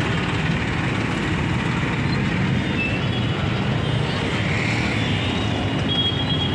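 Congested road traffic of trucks and auto-rickshaws, their engines running in a steady, dense rumble, with a horn sounding briefly near the end.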